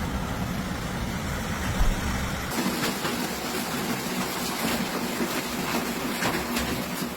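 Steady rushing noise of a thunderstorm, wind and rain. About two and a half seconds in it changes abruptly from a deeper rumble to a thinner hiss.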